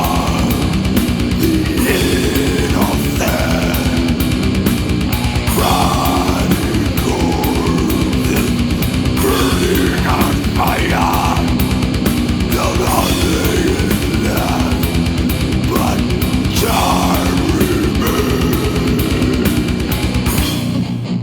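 Death metal band playing an instrumental passage: distorted electric guitars over a rapid, even pulse of bass drum hits. The full band cuts off abruptly shortly before the end, leaving a thinner guitar sound.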